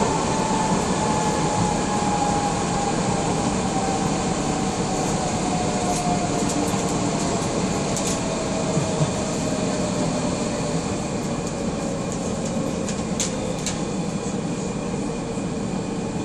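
Docklands Light Railway train heard from inside the carriage, running with a steady rumble while its motor whine falls slowly in pitch as it slows into a station. A few sharp clicks come through partway, from the wheels passing over rail joints.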